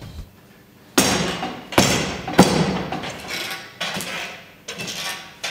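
About five sharp thuds, each followed by a short echoing tail: kicks striking a spring-mounted reflex target on a pole.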